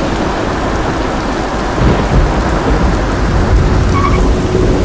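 Heavy rain pouring down steadily, with a low rumble of thunder swelling in about two seconds in.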